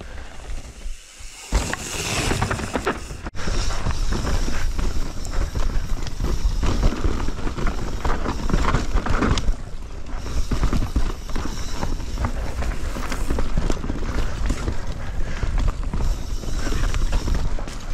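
Mountain bike riding down a dirt forest trail: tyres rolling over rough ground with constant knocks and rattles from the bike, and wind on the microphone. It gets louder about three seconds in.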